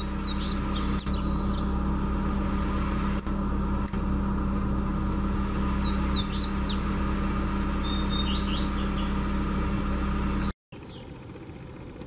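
Double-collared seedeater (coleiro) singing in the wild: three short phrases of quick, high, sweeping notes over a steady low hum. The hum cuts off abruptly near the end.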